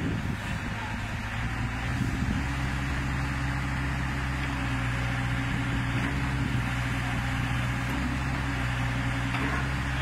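Lonking CDM6060 mini excavator's diesel engine running steadily while the arm and bucket are worked. It picks up a little about two seconds in, then holds an even hum.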